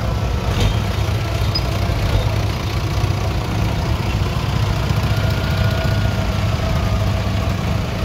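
Vintage tractor engines running steadily at low revs as the tractors drive slowly past: a blue Fordson diesel tractor close by, then a small crawler tractor.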